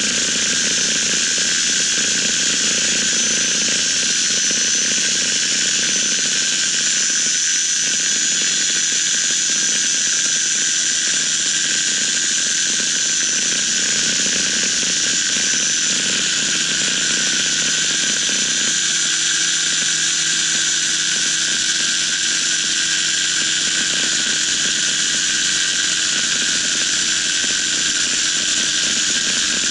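Paramotor engine and propeller running steadily in flight, with a high steady whine over the engine noise.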